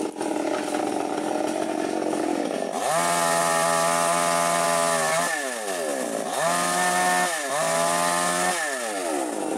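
Small handheld electric mini chainsaw revving three times: its whine rises, holds steady for one to two seconds, then falls away, with the last run-down near the end. A rough, noisy sound fills the first few seconds before the first rev.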